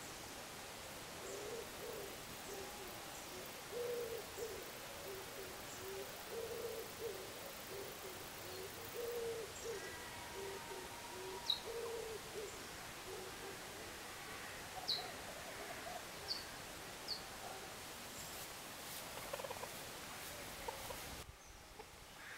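A series of short, low-pitched animal calls repeating about twice a second for several seconds, then fading. A few short, high chirps follow in the second half.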